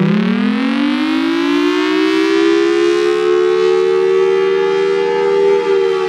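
Federal Sign & Signal Thunderbolt 1003 outdoor warning siren, its rotating horn sounding a two-note chord. The pitch climbs back up over the first couple of seconds from a low point, then holds high and steady.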